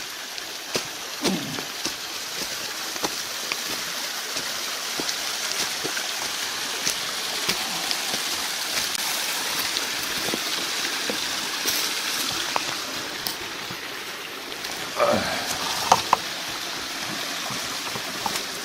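Mountain river water rushing steadily, with scattered clicks and crunches of footsteps on the trail and a short falling voice sound, like a sigh or grunt, about fifteen seconds in.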